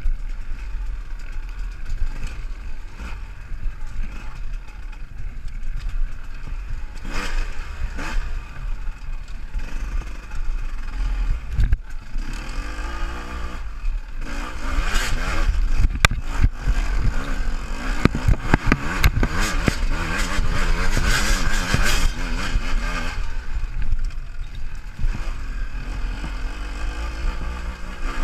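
Enduro dirt bike engine running under a rider's helmet camera, with a steady low rumble throughout. The throttle opens in bursts about seven seconds in and again through the middle of the stretch, with the bike clattering over rough ground.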